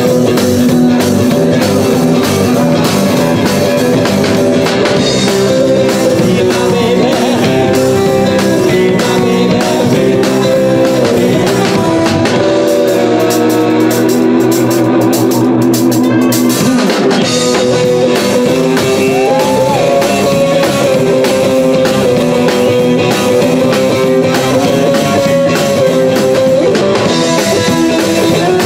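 Live rock'n'roll band playing loudly, with an electric guitar over drums and bass. About halfway through, the drums drop back for a few seconds before the full band returns.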